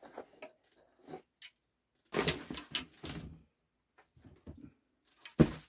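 Old Wilson Staff golf irons being handled and lifted out of a cardboard box: scattered light clinks and rustling, a busier stretch of clatter in the middle, and one sharp knock near the end.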